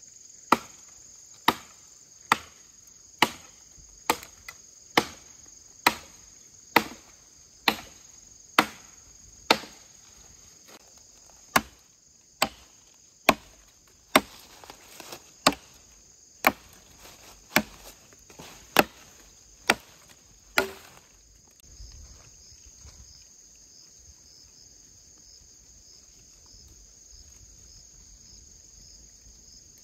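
A tool striking wood in steady blows, about one a second, stopping about two-thirds of the way through. Crickets keep up a steady high buzz throughout.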